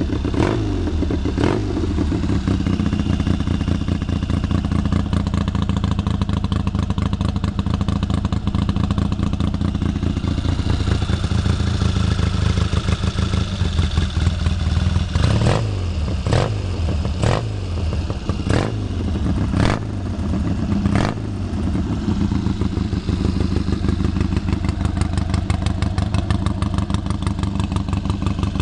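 Triumph parallel-twin engine of a 1964 Triton cafe racer running just after a one-kick cold start, chokes on, through open-chamber Dunstall reverse-megaphone mufflers. It settles to an uneven fast idle, with a couple of quick blips of the throttle just after it catches and about six more short blips from about halfway through, the revs falling back after each.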